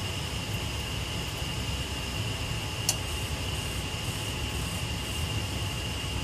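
Gas water heater's vent fan running with a steady rush and a thin, steady whine as the heater restarts, with one sharp click about three seconds in.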